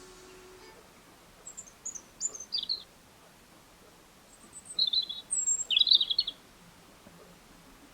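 A songbird singing two short phrases of quick high chirps, the first a descending run about a second and a half in, the second louder, about four to six seconds in.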